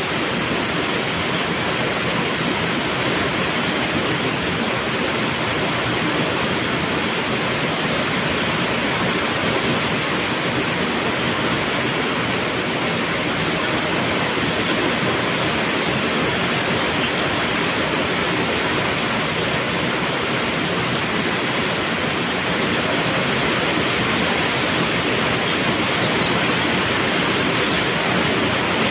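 Heavy rain falling in a steady, even hiss. A bird gives a couple of short, high, falling chirps about halfway through and several more near the end.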